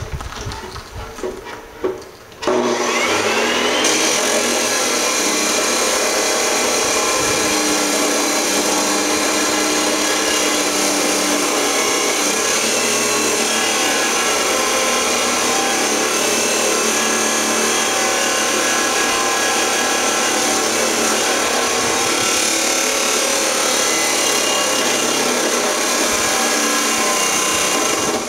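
Electric grinder spins up about two and a half seconds in with a rising whine, after a few quieter knocks. It then runs steadily at full speed, grinding into a steel bar.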